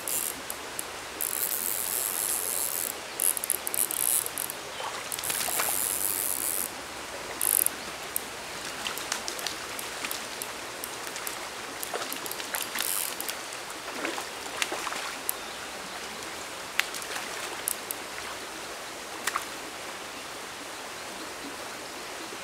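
Small rocky stream running steadily while a hooked brown trout splashes at the surface. Bursts of high rasping in the first several seconds, from the fly reel's click drag giving line. Sharp ticks and splashes are scattered through the rest as the fish is played and netted.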